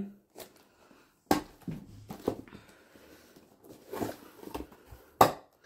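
Black corrugated cardboard mailer box being handled and opened: a sharp knock about a second in, soft rustling and scraping of card, and another sharp knock near the end.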